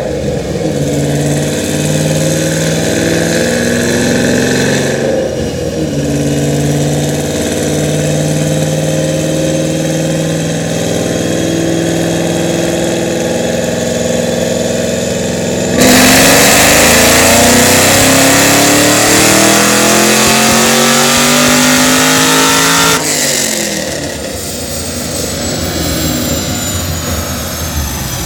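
Car engine running steadily at part throttle, then about 15 seconds in going to full throttle in a loud pull with the pitch climbing for about seven seconds, cut off suddenly and winding down with a falling high whine. A tuning run after a retune for an auxiliary pump.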